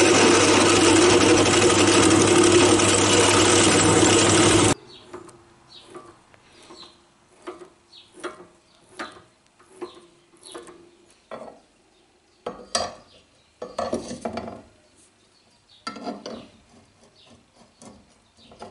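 Bench drill press running under load while drilling a steel rod, stopping abruptly about five seconds in. Then a small cutter is turned by hand in the drilled hole, giving a run of light scraping clicks about one to two a second, and near the end loose steel parts knock and clink as they are handled.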